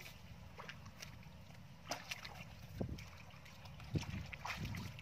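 Shallow muddy water sloshing and splashing in a few short bursts as a plastic basket is pushed down through it, over a low steady rumble.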